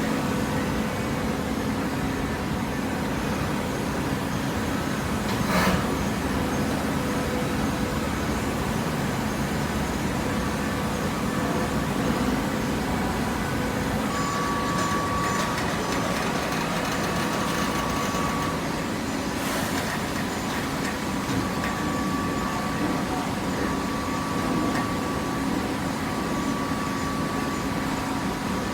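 Hydraulic carton baler running: a steady machine hum with a high whine that comes in twice for several seconds, and two sharp knocks, the first about five seconds in and the second about twenty seconds in.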